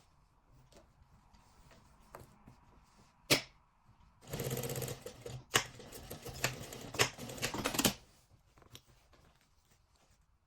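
Sewing machine running in one burst of about three and a half seconds, a rapid mechanical stitching rattle, with a single sharp click shortly before it starts.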